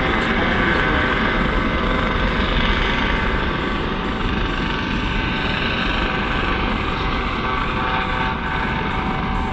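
US Coast Guard MH-65 Dolphin helicopter hovering: a steady rotor and turbine roar with a whine of several steady tones over it.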